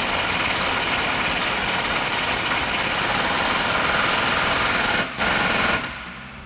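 AirCat pneumatic impact wrench hammering continuously as it tightens a bolt on the rear leaf spring mounts, with the axle held at ride height so the new bushings are not damaged. It pauses briefly about five seconds in, fires one more short burst, then stops.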